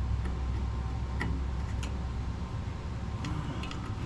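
Scattered light clicks of wire connectors being handled and pushed back onto the horn terminals of a skid loader, over a steady low rumble.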